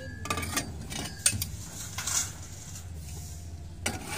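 Irregular metallic clinks and clanks from a hand-cranked plate-rolling machine as its steel lever is worked, the chain and sprocket drive knocking while a steel plate is rolled into a cylinder.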